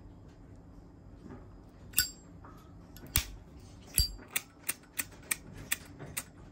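Zippo lighter being handled: a few sharp metallic clacks, then a steady run of clicks about three a second as its flint wheel is worked.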